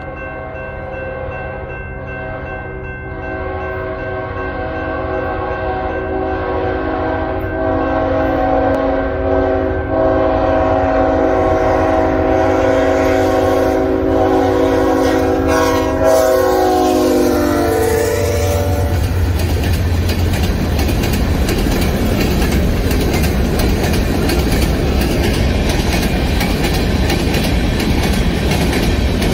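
Freight locomotive air horn sounding a long chord, growing louder as the train approaches, its pitch dropping as the locomotive passes about 17 seconds in. After that comes the steady noise of covered hopper cars rolling by on the rails.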